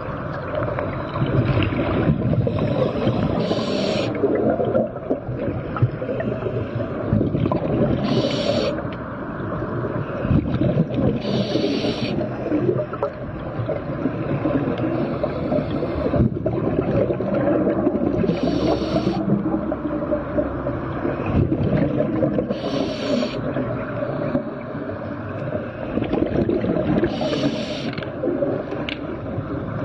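Underwater recording: a dense, churning low rumble, with a short hiss of a scuba diver's exhaled bubbles about every four seconds.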